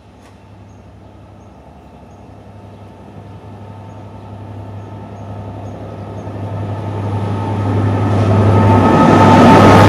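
A Class 67 diesel locomotive approaching at speed: a steady low engine drone and rail noise growing steadily louder, loudest near the end as the locomotive reaches the platform.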